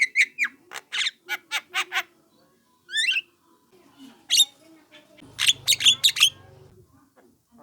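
Young Javan myna giving harsh, squawking calls in quick runs, with a short rising trill about three seconds in and a dense burst of calls a little later. These are the calls played as a lure to draw other mynas to respond.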